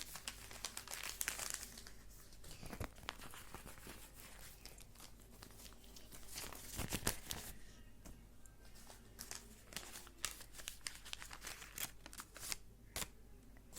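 A handmade paper envelope being opened by hand: paper crinkling and rustling with many irregular small crackles, and some tearing.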